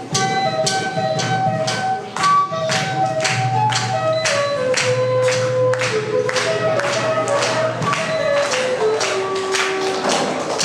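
A school orchestra playing Assamese-themed ensemble music: a held melody line stepping gradually downward over an even percussion beat of about three strokes a second.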